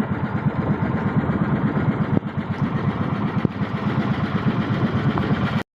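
Boat engine of a motorized outrigger bangka running steadily with a fast, even chugging beat; the sound cuts off abruptly near the end.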